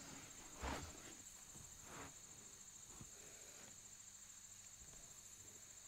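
Near silence: room tone with a faint, steady high-pitched whine. A soft, brief thump comes just under a second in.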